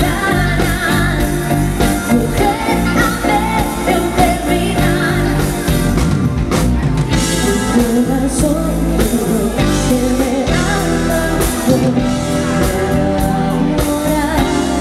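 A live pop-rock band playing, with a woman singing lead over electric guitars, bass and drums.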